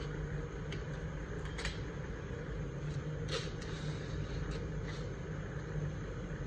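A steady low mechanical hum, like a fan or appliance running. A few faint clicks and crinkles come through it, from ice cream sticks being pushed into foil-covered cups.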